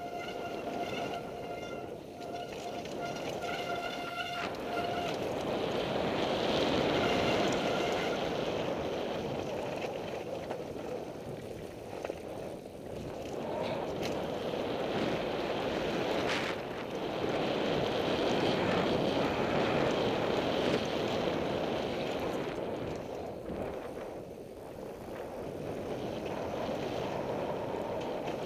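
Devinci Wilson downhill mountain bike descending a rocky gravel trail, heard from a helmet camera: wind rushing over the microphone and the tyres rumbling and crunching over loose stones, swelling and easing with speed. A steady buzzing tone runs through the first five seconds or so, and there is one sharp knock about halfway through.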